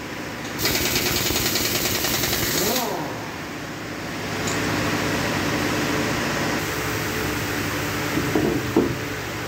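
Impact wrench running for about two seconds as it spins a lug nut off a truck wheel, ending with a short rise and fall in pitch; after it, a steady machine hum with a couple of knocks near the end.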